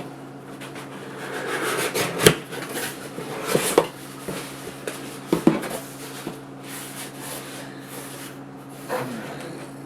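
A shipping package being opened by hand: rough rubbing and scraping of the packaging, broken by a few sharp knocks and clicks, the loudest about two seconds in.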